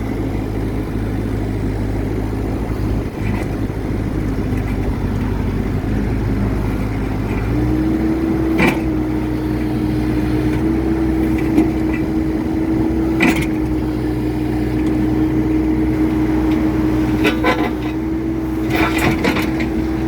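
Bobcat E26 mini excavator's diesel engine running steadily, joined about a third of the way in by a steady whine that holds as the hydraulics lift the machine. Two sharp knocks come in the middle, and a short rattle of clicks near the end.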